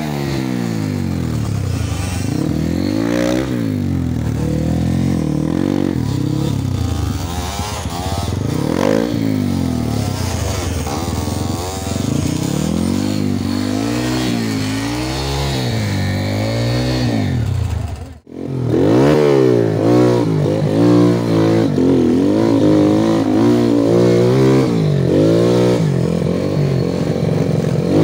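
Dirt bike engines revving hard, rising and falling over and over as the bikes claw up a steep rutted trail. There is a brief dropout about two-thirds of the way through, after which the revving is louder and busier, with more than one engine.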